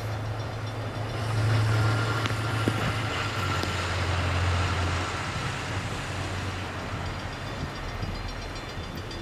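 Diesel freight locomotives, a GE Dash9-44CWL and an EMD SD70M-2, running past with a deep engine drone that is loudest a second or two in and eases off through the second half.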